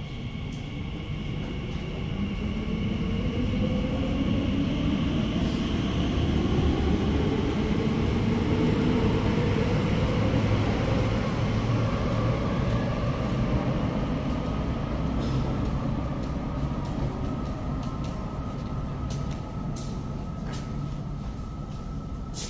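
Elizabeth line Class 345 train pulling out of an underground station: a heavy rumble that swells and then slowly fades, while the traction motors' whine rises steadily in pitch as it accelerates.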